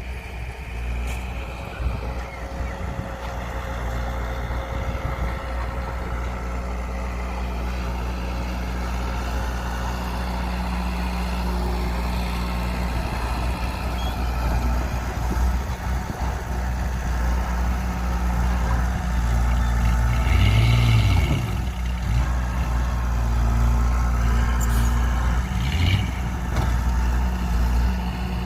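Heavy diesel engine running steadily, slowly getting louder, with a brief rise and fall in pitch about twenty seconds in and again near the end.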